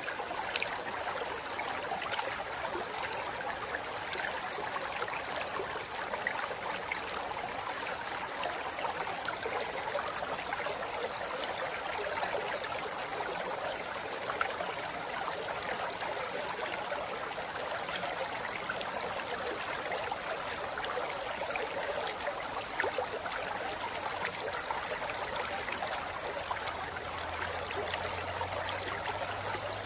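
A forest river flowing over rocks: a steady rush of running water that keeps on evenly without a break.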